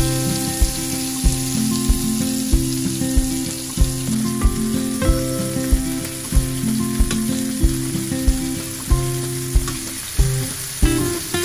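Chunks of beef frying in oil in a nonstick frying pan, a steady sizzle, heard together with background guitar music with a steady beat.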